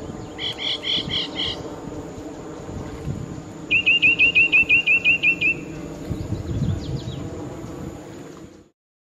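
Birds calling: a short series of about six chirps about half a second in, then a louder rapid series of about a dozen sharp, evenly spaced notes, and a fainter series after it. Underneath runs a steady low hum and a thin steady high tone, and the sound cuts off suddenly near the end.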